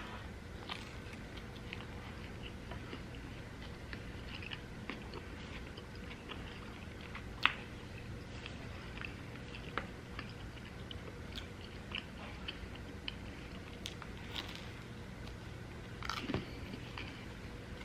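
A person chewing and biting food close to the microphone, with short wet mouth clicks scattered throughout. One sharp click about seven seconds in is the loudest sound, and a small cluster of clicks comes near the end.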